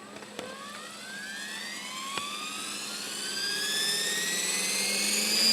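A mechanical whine with several overtones that rises steadily in pitch and grows louder, over a steady low hum, like a turbine spooling up. Two sharp clicks come in the first couple of seconds.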